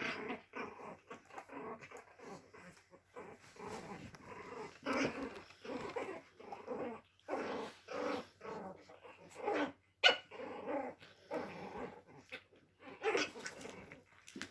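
Dogs growling over and over in play, with a few short barks mixed in. A sharp knock about ten seconds in.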